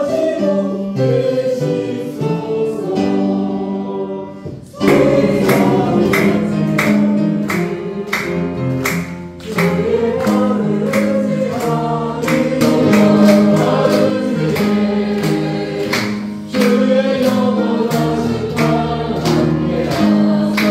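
A congregation singing a hymn together, many voices on sustained notes. The singing grows louder just before five seconds in, as a new phrase starts.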